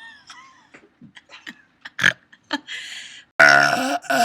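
A person belching: a long, loud, rough burp about three and a half seconds in, breaking off briefly and carrying on near the end.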